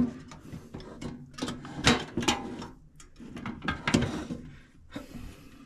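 Drawers of a Kobalt mini tool box's top box being slid open and shut on their runners, rattling with several sharp clacks.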